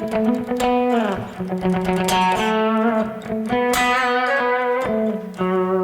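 Telecaster electric guitar played through a Strymon Big Sky MX reverb pedal with the effect switched on: plucked notes that ring on and blend into one another, with a downward pitch slide about a second in.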